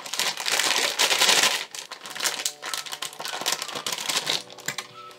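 Crinkly sock packaging being crumpled and torn open by hand: a loud crinkling for about the first second and a half, then quieter, irregular crackles and rustles.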